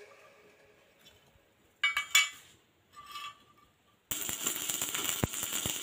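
A few sharp metal clinks, one ringing briefly, as steel parts are set on a steel plate; about four seconds in, electric arc welding starts suddenly with a steady crackling sizzle.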